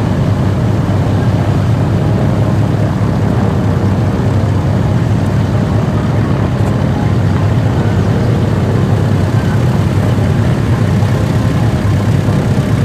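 Boeing B-29 Superfortress's four Wright R-3350 radial engines running at low power as the bomber taxis, a steady low rumble of engines and propellers.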